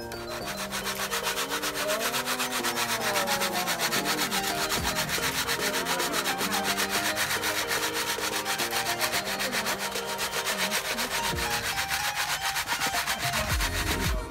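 A ball of dried cacao paste being grated by hand on a metal box grater: quick, regular rasping strokes as the cocoa is scraped into powder.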